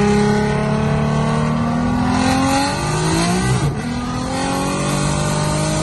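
Toyota Mark II's 2JZ-GTE inline-six, fitted with a large Garrett GTX4202 turbo, accelerating hard, heard from inside the cabin. The engine pitch climbs, drops sharply at a gear shift about three and a half seconds in, then climbs again.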